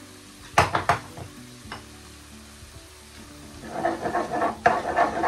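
Browned beef mince sizzling in a pan as a spoon stirs and scrapes through it. There are a few sharp knocks about half a second in, and heavier stirring from about two-thirds of the way through. Faint background music runs underneath.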